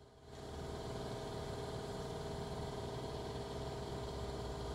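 An engine idling steadily: a low hum with several steady tones above it, coming up in level about a third of a second in.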